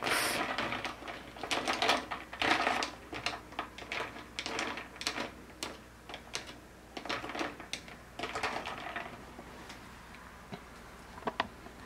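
Ice cubes clinking and rattling against a tall drinking glass as an iced matcha latte is stirred with a straw. The clicks are dense at first and thin out toward the end.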